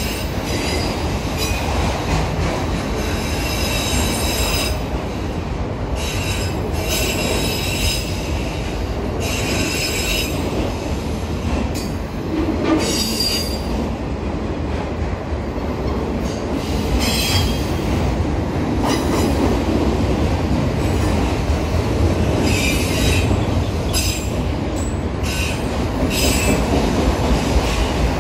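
Long freight train rolling past, with steady rolling noise from its cars and wheels squealing against the rail in repeated shrill bursts of a second or two each.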